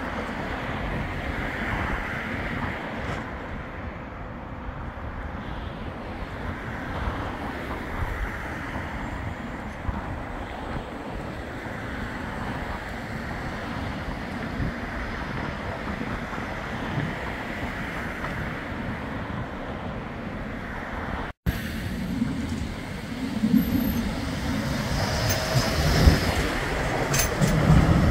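Wind and steady street traffic as a Bombardier Flexity 2 light-rail tram moves off from a stop. After a brief dropout about 21 seconds in, a Flexity 2 tram runs past close by, growing louder toward the end.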